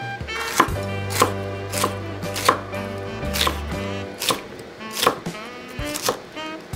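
Kitchen knife slicing a green bell pepper into rings on a wooden cutting board: about ten crisp cuts, each ending in a light tap of the blade on the board, about one and a half a second.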